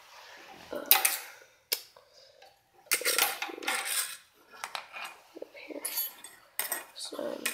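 Loose metal and plastic parts of a disassembled TV clinking and clattering as they are handled, in short irregular bursts with a few sharp clicks.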